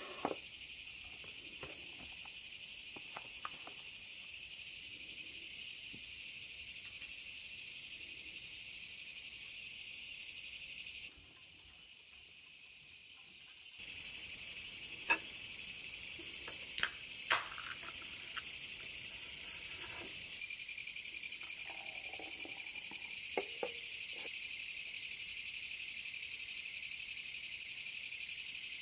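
Steady high chirring of a night insect chorus, with a few short sharp knocks and clinks from cans and tableware being handled.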